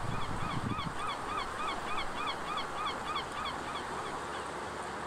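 Geese honking in a rapid series, about three calls a second, fading away partway through.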